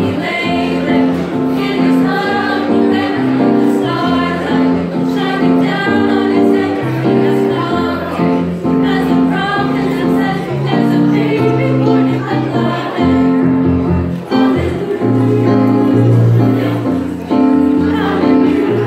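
Mixed-voice high school choir singing a held, multi-part harmony, with no pauses.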